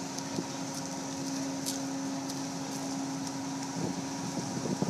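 Steady machinery hum of the car ferry Setoshio lying at the quay, with a constant low tone over a noisy drone.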